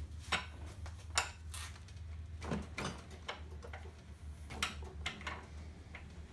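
Sharp metal clinks and knocks as a 3/4-inch wrench is handled and set onto the nut of an old master cylinder clamped in a steel bench vise. The clinks are scattered, about seven in all, over a steady low hum.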